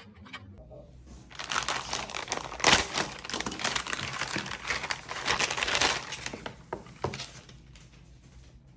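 Plastic shipping mailer bag crinkling and crackling as hands handle and crumple it. Starts about a second in, dense for several seconds, then a few separate crackles before it dies down.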